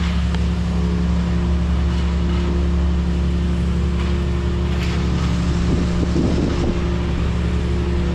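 A vehicle engine idling steadily: an even, low hum that does not change.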